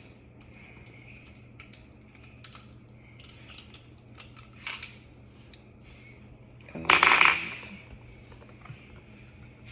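AA batteries and the plastic battery holder of a sensor kitchen faucet being handled: a few light clicks, then a loud clatter lasting under a second about seven seconds in as the batteries are taken out.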